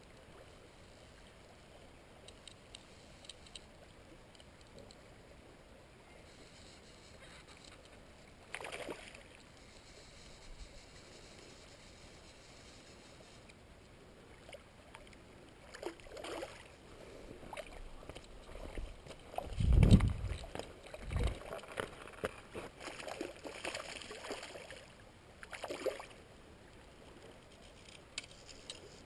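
Water splashing and sloshing close by in several separate splashes over the second half, the heaviest a deep thud about twenty seconds in.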